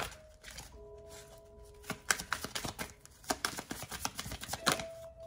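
Tarot cards being shuffled and handled: a run of quick, sharp clicks and snaps of card stock. Soft held tones sound behind them, fading out partway through and coming back near the end.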